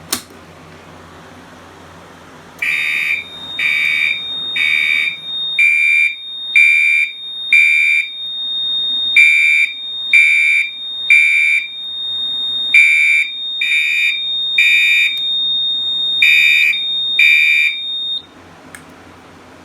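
A Firelite BG-12LX pull station is pulled with a sharp click. About three seconds later a Gentex SHG horn-strobe sounds the evacuation signal: loud horn beeps in groups of three with a pause between groups (temporal-3 pattern), over a steady high-pitched whine. The whole signal cuts off suddenly shortly before the end.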